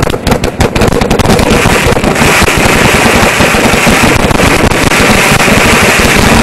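Ground fountain firework erupting at close range: a rapid run of sharp crackles at first, merging after about a second and a half into a loud, continuous rushing hiss of spraying sparks with dense crackling.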